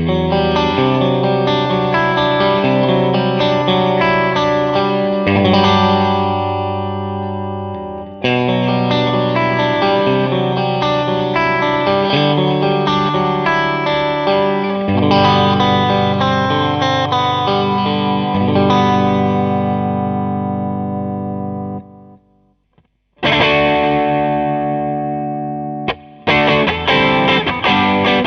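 Electric guitar played through a Klon Centaur-type overdrive pedal, chords struck and left to ring out with mild overdrive. The playing stops for about a second some 22 seconds in, then picks up again.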